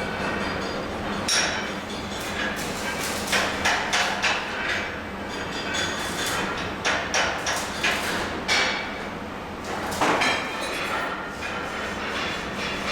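Irregular hammer strikes on metal, a dozen or so sharp knocks in loose clusters, over a steady low hum.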